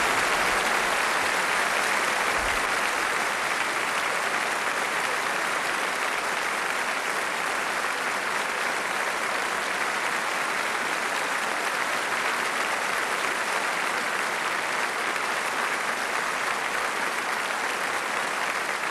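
Large audience applauding steadily, a dense continuous clapping that eases off slightly toward the end.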